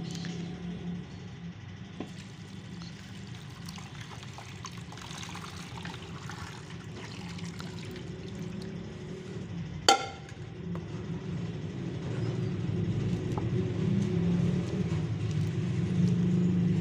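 Water pouring and splashing from a steel pot onto a chicken in a plastic tub, over a low steady rumble that grows louder in the last few seconds. A single sharp knock about ten seconds in is the loudest sound.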